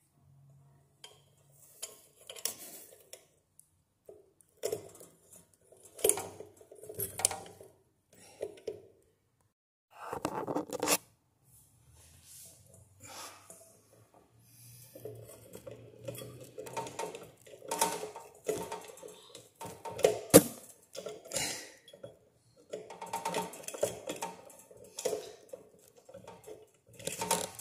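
A ceiling fan's metal down rod, collar and housing clinking and rattling as they are handled and fitted together, with a screwdriver knocking against the metal. The taps are irregular and get busier about halfway through.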